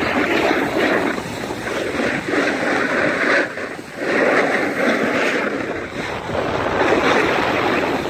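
A steady scraping rush of edges sliding and carving over packed snow, mixed with wind buffeting the microphone. The sound swells and eases with the turns and drops briefly just before four seconds in.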